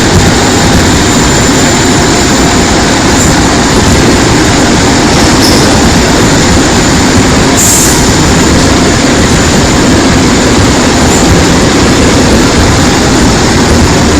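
Seoul Metro Line 2 old 2000-series resistance-control electric multiple unit running: a loud, steady rumble of wheels and traction gear on the track, with a few short high-pitched blips, the clearest about eight seconds in.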